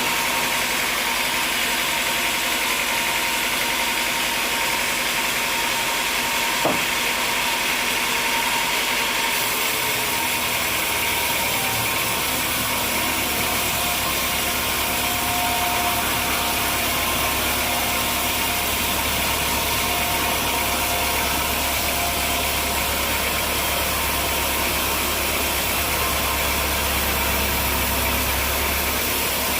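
Sawmill machinery running steadily with an engine-like drone. A single click comes about seven seconds in, and a deeper hum joins about ten to twelve seconds in.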